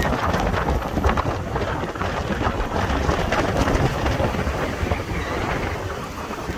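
Wind rushing and buffeting against the microphone of a moving vehicle, a dense low rumble that rises and falls unevenly.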